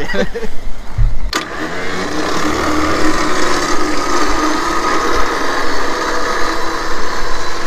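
A motor starts with a sharp click about a second and a half in, then runs with a steady hum and a held whine.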